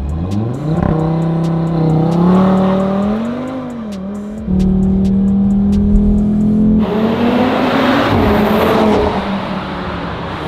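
Audi RS3 8Y's turbocharged five-cylinder engine on an Akrapovič titanium exhaust, revving up steeply, then held at high revs with the pitch wavering a little. A loud rushing noise joins about seven seconds in.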